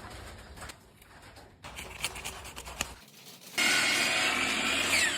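Light scratching and handling sounds, then about three and a half seconds in a power tool starts suddenly and runs loud, with a falling whine near the end.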